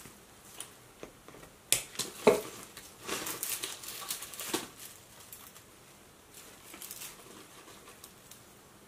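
Small pruning scissors snipping twice, then the crackly rustle of dry, crisp Hoya curtisii vines and leaves being pulled apart and handled.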